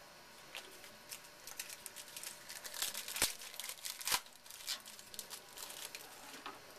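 Foil wrapper of a trading-card pack crinkling and tearing as it is opened by hand: a run of quick crackles, densest in the middle, with two sharper clicks about three and four seconds in.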